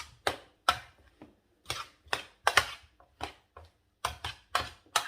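A kitchen utensil tapping and clicking against a dish as food is spooned out and spread, in a quick uneven run of sharp knocks, about two or three a second.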